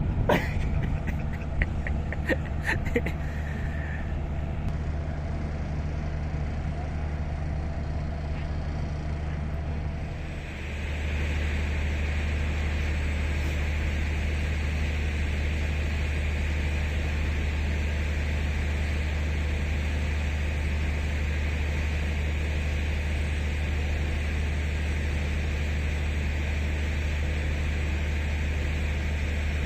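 Traction-motor blowers of class 5E1 electric locomotives running with a steady drone, with a few clicks and knocks in the first few seconds. About ten seconds in the drone shifts, growing slightly louder with a higher hiss added.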